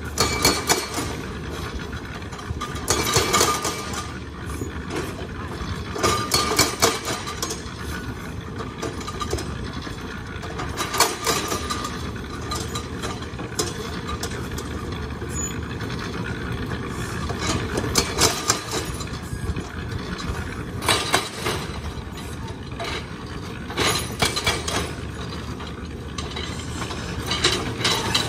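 Hydraulic breaker on a SANY excavator hammering rock, in several short bursts of rapid blows, over the steady running of the excavator's engine.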